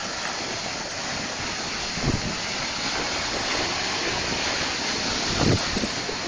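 Steady rushing noise with wind buffeting the microphone, giving low thumps about two seconds in and again near the end.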